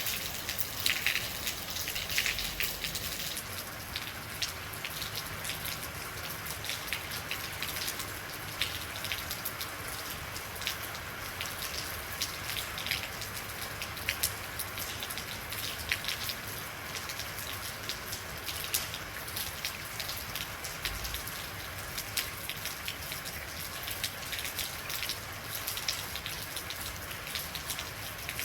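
Steady rain falling, with many close drops ticking and pattering on a hard surface over a continuous hiss.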